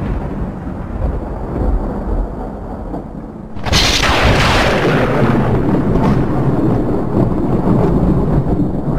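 Intro sound effect: a low rumble, then a sudden loud boom a little under four seconds in that fades slowly back into rumbling.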